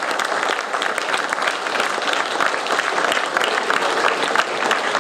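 Sustained applause, many people clapping steadily.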